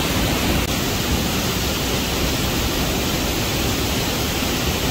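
Waterfall and whitewater cascade rushing steadily close by: an even, unbroken wash of falling water.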